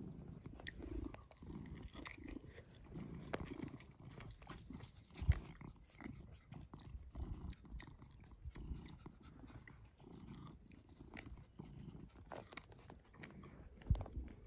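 A tabby cat purring on a lap in rumbling pulses about once a second, with small chewing clicks close to the microphone. There are two soft thumps, one about five seconds in and one near the end.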